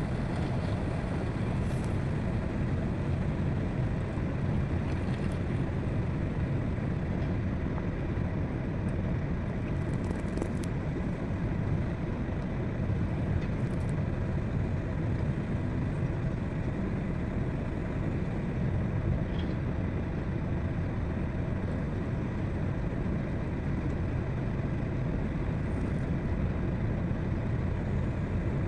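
Heavy diesel earthmoving machinery running steadily, an even low rumble with a few faint clicks.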